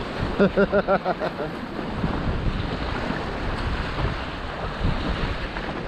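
Whitewater rapid rushing and churning around packrafts, with wind buffeting the microphone. About half a second in, a person's voice gives a quick run of about six short calls.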